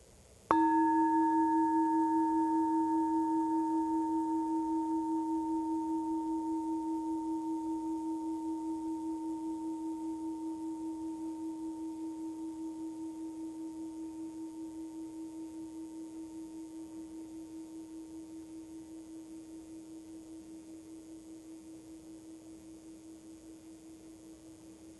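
A large hammered metal singing bowl is struck once and rings out with a low, pure tone and fainter higher overtones. The ring fades slowly with a steady wobble and is still sounding at the end, marking the start of a quiet meditation.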